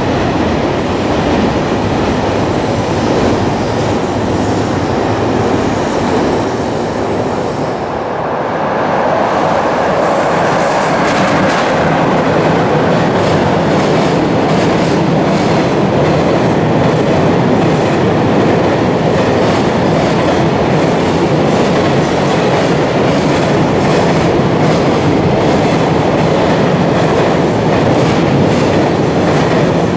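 Long freight trains passing through a station at speed: a continuous rumble of wheels on rail. About eight seconds in, a second freight train takes over, a little louder, its wheels clattering over the rail joints with many short clicks and a few brief high squeals.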